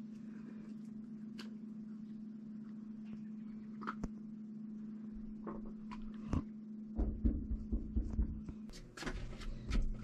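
A steady low hum with faint scattered clicks, then from about seven seconds in a run of loud thumps and knocks of hands against a glass sliding door.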